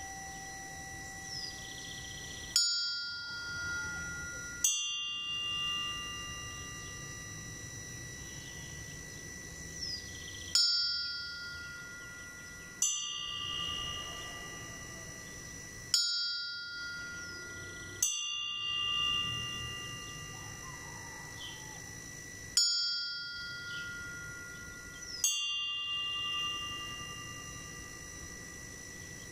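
Two bells tolled alternately in a slow death knell (toque de difunto): strokes come in pairs about two seconds apart, a higher-pitched bell then a lower one, with pauses of four to six seconds between pairs. Each stroke rings on and fades slowly.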